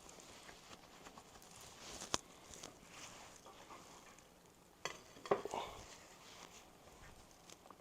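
Quiet handling of small metal objects: light scraping with a few sharp metallic clinks, a single one about two seconds in and a short cluster a little past five seconds.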